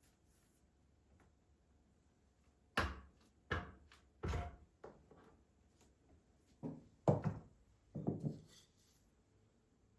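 A series of about six or seven separate knocks and thuds, like objects being handled and set down, starting about three seconds in after a quiet stretch.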